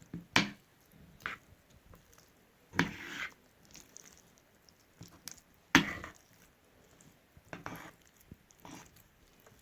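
Dried figs being mixed with olive oil in a bowl: a series of separate sticky, squishing sounds and clicks, the loudest about three and six seconds in.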